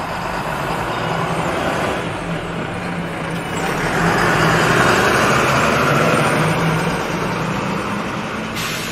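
A bus driving past: a steady engine hum with a rushing noise that swells as it approaches, is loudest midway and fades as it moves off.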